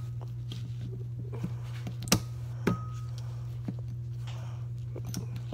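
Sharp metal clicks and taps of a hand tool working at a small electric motor's metal parts while he tries to pry a part loose. There are a few light clicks, a loud one about two seconds in, and another shortly after that rings briefly, all over a steady low hum.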